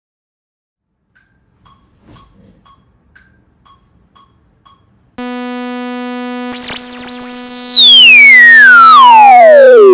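A synthesizer plays one sawtooth note held steady, with a few faint ticks before it. About a second and a half after the note starts it gets much louder, and a whistling resonant peak glides down from very high to the note's own pitch. This is the filter cutoff being swept closed with the resonance at maximum.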